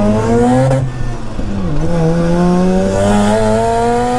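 Single-turbo Mazda RX-7 FD3S's 13B twin-rotor rotary engine, heard from inside the cabin, pulling hard with its pitch climbing. About a second in it breaks off for a gear change, its note dips, then it pulls again with a slower, steady rise in pitch.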